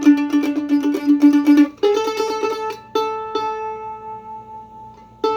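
Craig Wilson WA-5 'Griffith Loar' tribute mandolin played solo: fast tremolo picking on a low note, then a higher tremolo phrase, then single plucked notes left to ring and fade out, with a new note struck near the end. It is strung with its original strings.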